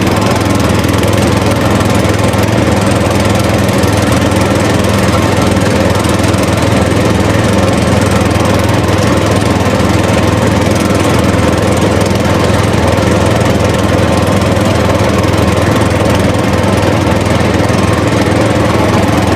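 A small motor running steadily with an unbroken, even drone.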